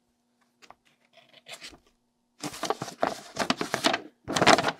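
A paper instruction sheet being unfolded and handled: a few faint ticks, then crisp rustling and crinkling of the paper from about halfway in, loudest near the end.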